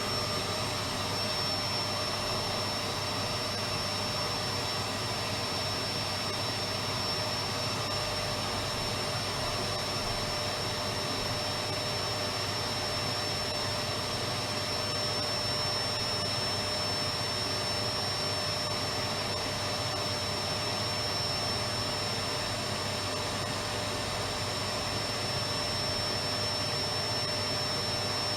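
Electric vacuum cleaner running steadily: a constant motor whine and airflow hiss with a fixed high tone, unchanging throughout.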